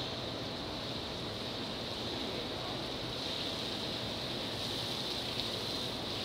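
Steady rushing hiss of running water, with a faint steady hum underneath.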